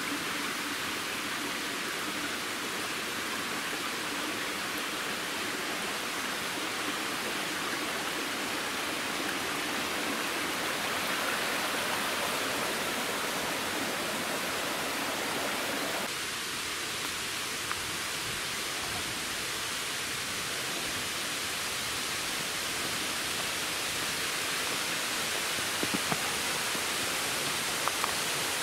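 Steady rush of flowing water, a dense even hiss with little low rumble.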